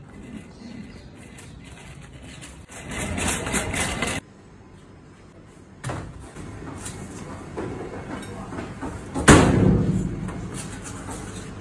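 A large whole fish dropped onto a cutting board on a steel prep counter: one loud thud about nine seconds in, ringing briefly. Earlier comes a stretch of louder noise that stops abruptly.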